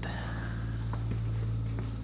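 Steady low hum in the garage with a few faint ticks and knocks, as of hands handling a part.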